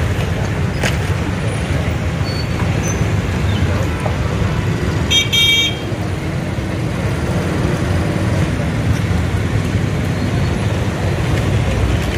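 Busy street traffic running steadily, with a vehicle horn tooting briefly about five seconds in.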